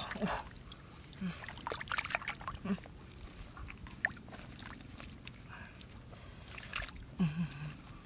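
Hands splashing and squelching in shallow muddy water while grabbing a wriggling fish, with irregular short slaps and splashes. Brief low human grunts come a few times, a cluster of them near the end.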